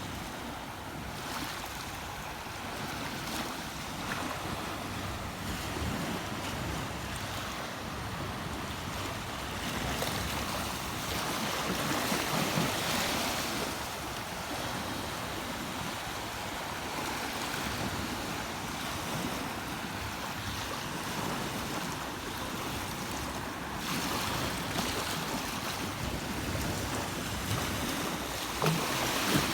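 Steady rushing of flowing water, an even wash of noise that swells a little around the middle and again near the end.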